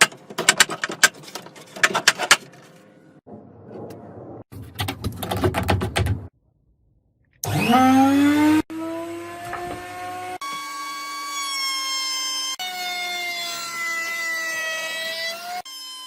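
Rapid clattering taps, then a burst of rough noise and a moment of silence. An electric wood router then spins up with a rising whine and runs with a steady high whine, its pitch shifting at several cuts.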